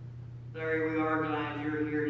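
A person's voice holding a long, level, drawn-out note for about a second and a half, starting about half a second in, over a steady low hum.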